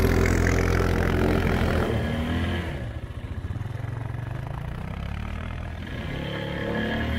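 ATV engines running on a snowy trail, a steady engine drone that is loud at first, drops quieter about three seconds in, and builds again near the end.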